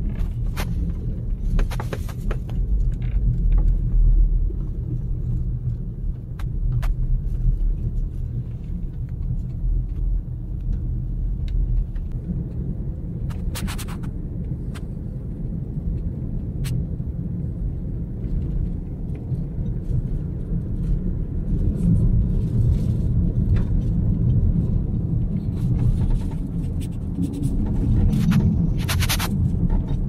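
Car cabin noise while driving on an unpaved dirt road: a steady low rumble of tyres and engine, with scattered sharp clicks and ticks.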